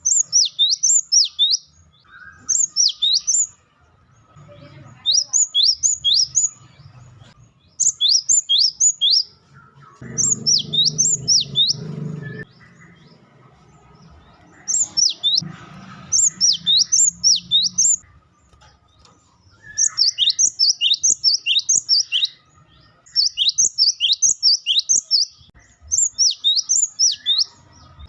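Cinereous tit (gelatik batu) giving fast chattering calls: short bursts of quick, high, descending chirps repeated every two to three seconds, with brief pauses between bursts.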